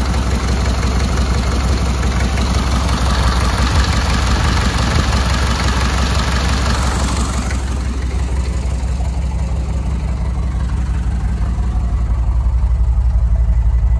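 A GMC 6.5-litre V8 turbo-diesel idling steadily with a strange tone. After a remanufactured injection pump was fitted, the owner says it sounds slower than its roughly 675 rpm reading. About halfway through the sound turns duller, heard from inside the cab rather than under the open hood.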